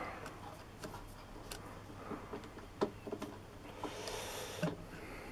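Scattered light clicks and taps of a dial test indicator and its holder being handled and repositioned against a wooden sanding disc, with a short soft rustle about four seconds in.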